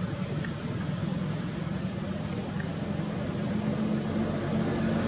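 A motor engine running steadily off-screen, a low droning hum that grows a little louder near the end.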